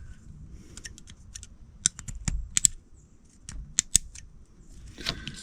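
Small sharp plastic clicks and ticks, a dozen or so at uneven spacing, as a harness pin tool works at the plastic locking tabs inside an engine wiring connector to free the metal pins.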